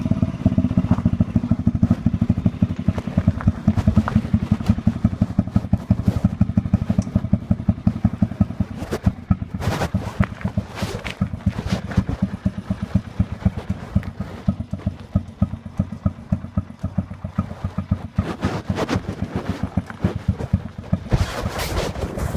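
Honda Magna 50's single-cylinder four-stroke engine settling from revs to an idle at the start, then idling as a rapid, even chuff of individual exhaust pulses, loud through the stock muffler with its baffle removed. A few brief clatters are heard over it.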